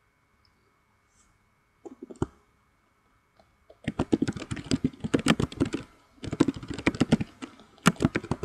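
Computer keyboard being typed on in quick runs of keystrokes, starting about four seconds in with a short pause near six seconds. A couple of single clicks come about two seconds in.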